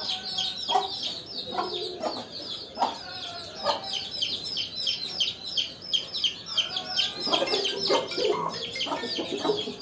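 Chickens calling: a constant chorus of short, high, falling peeps, several a second, with lower clucks scattered through and thickening near the end.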